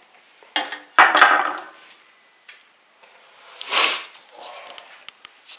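A wide steel plastering spatula set down among tools, clattering: a knock, then a loud sharp clank about a second in with a brief metallic ring. A rustling scrape follows near the end, with a few light clicks.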